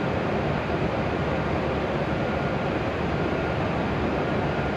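Steady, unchanging whir and hum of a W7 series Shinkansen standing at the platform with its doors open, its onboard equipment running, mixed with the station's ambient noise.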